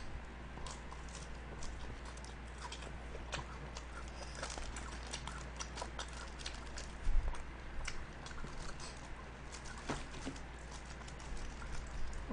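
Chewing a mouthful of lettuce salad: irregular crisp crunches and wet clicks, with the strongest one about seven seconds in, over a low steady hum.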